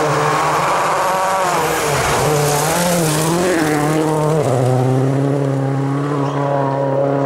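Rally car engine running hard on a stage. Its pitch rises and dips with throttle and gear changes, then holds at a steady note from about halfway.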